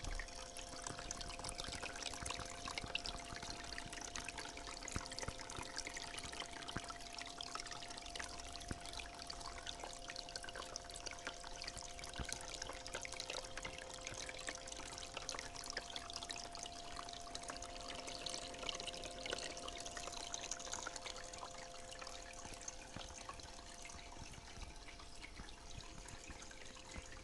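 Water trickling and splashing steadily down a small cement tabletop waterfall fountain, with a faint steady hum underneath.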